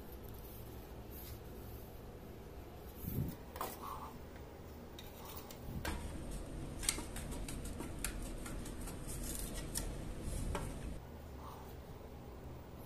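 Light clicks, taps and rubbing from handling a wooden scabbard and a small metal glue spatula, busiest in the middle.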